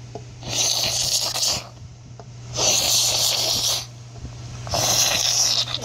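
Three breathy 'kshh' hissing bursts made with the mouth as sound effects, each about a second long and roughly two seconds apart, over a steady low hum.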